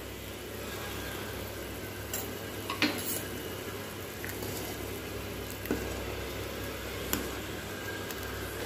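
Thick curry gravy simmering in a metal pan with a steady bubbling hiss while a steel ladle stirs it, knocking sharply against the pan about five times.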